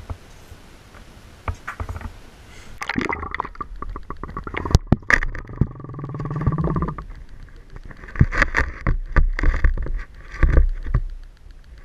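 A few light handling clicks, then about three seconds in the sound turns muffled as the microphone goes under the water in an ice-fishing hole: gurgling, scraping, and a run of knocks and thuds.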